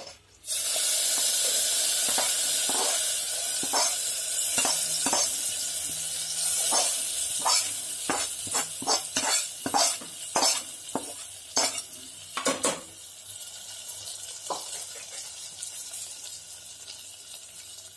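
Hot sesame-oil tempering of mustard seeds, cumin, dried red chillies and garlic poured from a kadai into mashed greens, sizzling loudly at once and slowly dying down. A perforated metal ladle scrapes and taps against the pan again and again as the last of the tempering is pushed out, stopping near the end.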